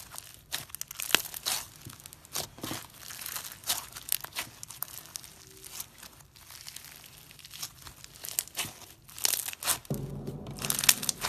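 Crunchy yellow slime squeezed and kneaded by hand, giving a dense, irregular run of crackles and pops. Music comes in near the end.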